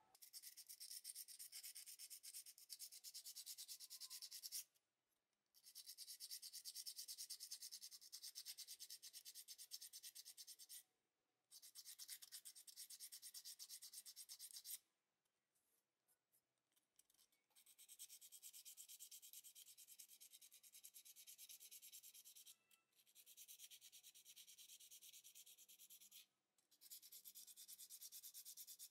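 Close-up sanding of a small die-cast toy car body and its putty widebody flares with a small sanding sponge: quick back-and-forth scratchy strokes in runs, stopping briefly about 5 and 11 seconds in, for a longer break around the middle, and briefly twice near the end.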